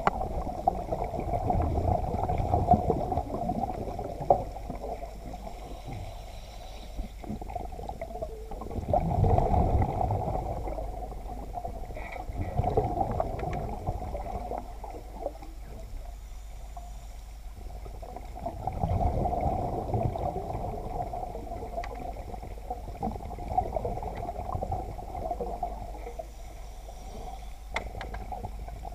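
Underwater recording: scuba regulator exhaust bubbles rush and gurgle in swells about every ten seconds, over a steady muffled water hum.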